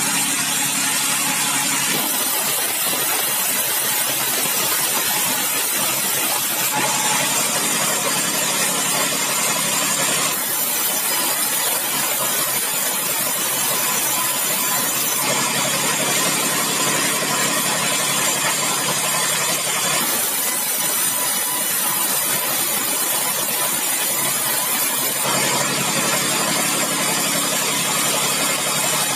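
Large sawmill band saw running and sawing bengkirai hardwood into boards. The steady machine noise shifts in character every few seconds as the blade goes into and out of the timber.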